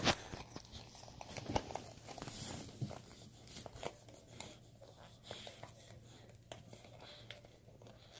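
Dog chewing and tearing at a toy: irregular crunches, snaps and ripping scrapes as she pulls it apart.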